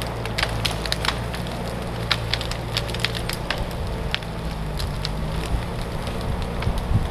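John Deere 540D skidder's turbo diesel engine running steadily as felled fir trees are dragged through the brush, their branches snapping and crackling in many sharp cracks.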